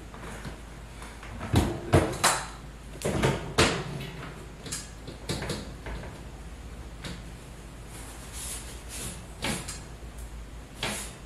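Ceiling return-air vent grille being pushed shut over a fresh air filter and secured: a cluster of sharp clacks and knocks in the first few seconds, then a few lighter taps.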